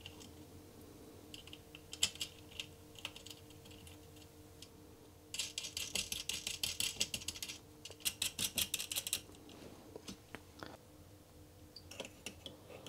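Light metallic clicking and rattling of small nuts and washers being threaded onto the backs of panel-mount banana jacks on a circuit board. There are two bursts of rapid clicking in the middle.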